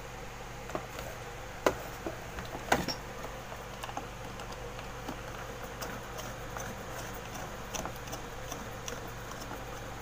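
Small irregular clicks and taps of wires and a screwdriver working a fire-alarm call point's plastic screw terminals, a couple of them sharper knocks about two and three seconds in, over a steady low hum.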